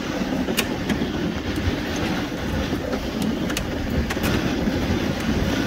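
Dog sled runners rumbling and scraping over a packed-snow trail, a steady noise broken by scattered sharp clicks.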